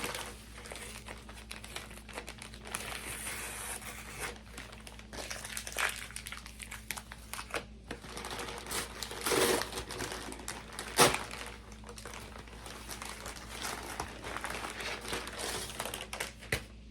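Packaging crinkling and rustling as a parcel is handled and unwrapped, with scattered sharp clicks and taps, the loudest about eleven seconds in.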